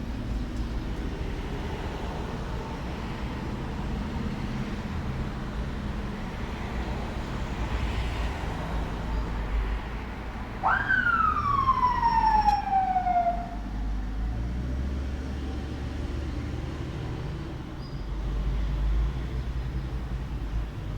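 Steady low outdoor rumble, with one loud wail about halfway through that jumps up in pitch and then slides slowly down over about three seconds.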